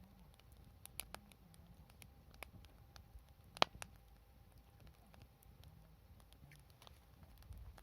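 Wood fire crackling, with scattered sharp pops and one louder snap about three and a half seconds in.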